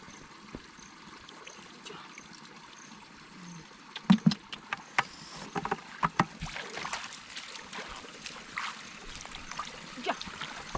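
Shallow running stream trickling steadily, then splashing and sloshing of water being disturbed from about four seconds in, with several sharp irregular splashes.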